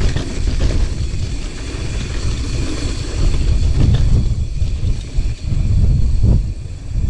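Wind buffeting the microphone of a mountain biker's camera while riding, an uneven low rumble that swells and dips.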